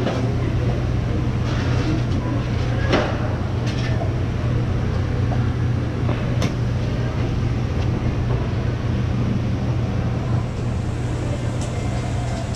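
Steady low mechanical hum under a constant background noise, with a few faint clicks.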